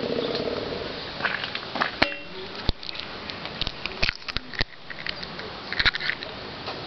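An egg is knocked sharply against a hard tabletop, one ringing knock, then cracked open by hand and dropped onto the table, with several small clicks and taps of shell on the surface. A passing motor vehicle's hum fades out in the first second.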